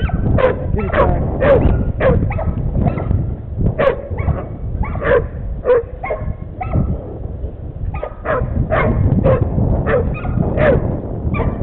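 Hog-hunting bay dogs barking rapidly and repeatedly, about two to three barks a second with a short lull midway, baying at a hog. Constant low rumbling noise underneath.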